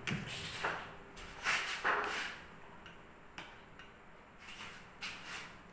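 A few short, separate scraping and rustling noises of someone eating noodles with a fork from a plate at a table and someone getting up from the table, clustered in the first two seconds and again a little later.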